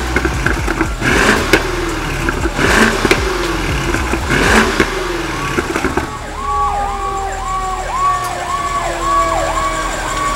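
2019 BMW 650i Gran Coupe's twin-turbo V8 revved hard through its exhaust in about four short blips, each falling back. From about six seconds in, an emergency siren's fast repeating yelp becomes the main sound.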